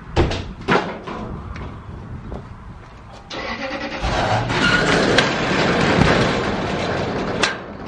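Two knocks of wood being set down, then a corrugated steel roll-up storage door rattling loudly as it is pulled down, ending in a bang as it shuts near the end.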